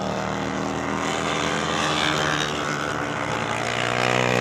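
Several racing motorcycle engines running at speed together, a layered steady engine sound.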